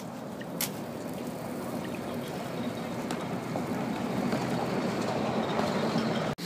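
Steady rumble of a motor vehicle going by, growing louder toward the end, with one sharp click about half a second in.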